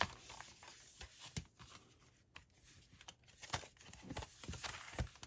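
Cardboard and paper packaging handled by hand: soft rustling with a scattering of light taps and clicks as card inserts are moved and set down.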